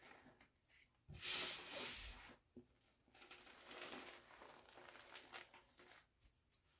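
Hands squeezing and crumbling a heap of gym chalk mixed with brown holi powder: soft powdery crunching and rustling, loudest in a rush a little after a second in and again around the middle, with a few crisp crackles near the end.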